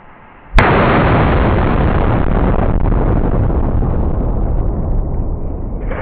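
A quarter stick of dynamite blows up inside a window air conditioner about half a second in: one sharp blast, followed by a long, loud rumbling tail that slowly fades. Before the blast, a faint hiss of the burning fuse.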